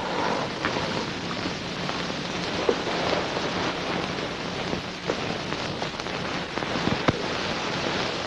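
A steady rain-like hiss, sprinkled with small clicks and crackles, over a faint low hum.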